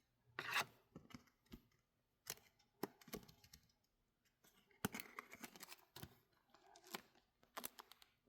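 Faint handling of trading cards: scattered light clicks and short rustles of card stock, with a small cluster about five seconds in.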